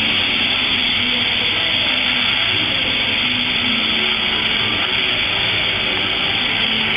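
Steady hiss of a glassworking gas torch burning.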